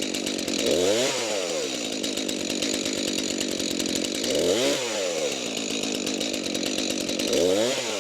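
Stihl chainsaw running, its engine revved up and let back down three times, about every three seconds, as it works through a cherry log.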